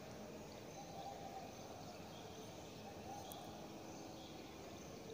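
Faint classroom room tone: a steady low background hiss with scattered faint high chirps.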